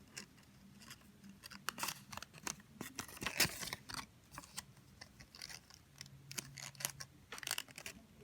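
Sticky tape and folded paper being handled while a paper box is taped together: irregular short rips and crinkles, one at a time, with gaps between them.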